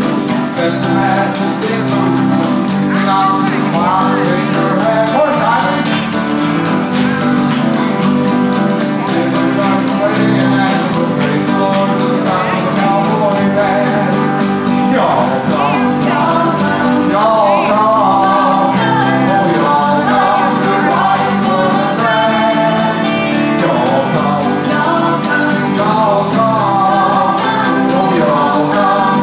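Live country band playing a song: strummed acoustic guitars and electric bass, with a man singing lead into a microphone.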